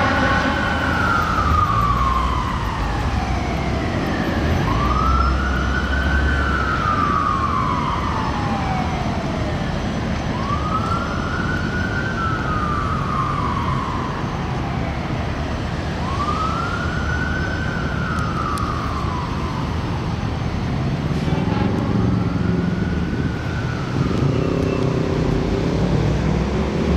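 A fire engine's siren wailing: each cycle rises quickly and then falls slowly, repeating about every five seconds. A low truck and traffic rumble runs underneath. The siren grows fainter near the end as a lower engine drone comes up.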